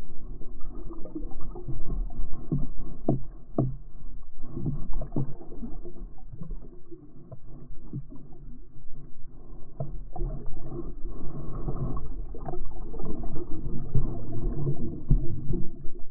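Muffled underwater sloshing and gurgling with irregular dull knocks, as picked up by a GoPro action camera, all of it dull and without treble.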